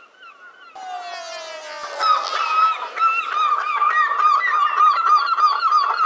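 Gull long call: one drawn-out falling note, then from about two seconds in a fast run of repeated laughing calls.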